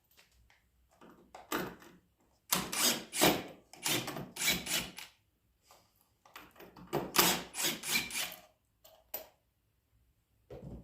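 Hands rummaging through a box of small odds and ends, things clattering and rustling against each other in two busy spells with short pauses between.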